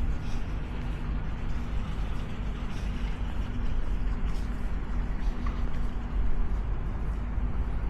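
Steady low engine rumble with a faint even hum, under continuous outdoor noise.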